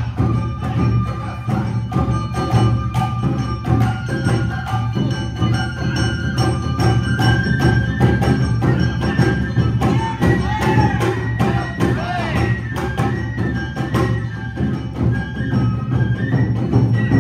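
Live Awa odori accompaniment: a fast, driving rhythm on drums and a small hand gong, with a bamboo flute melody held above it.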